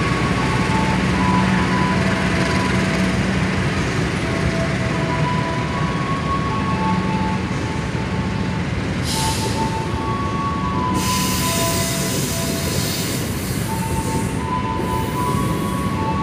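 Passenger train coaches rolling past the platform: a steady rumble of steel wheels on the rails, with bands of high hissing from about nine seconds in.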